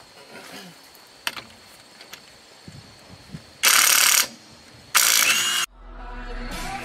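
Two short bursts of an impact wrench, each under a second and about a second apart, loosening the front wheel's lug nuts. Electronic music starts near the end.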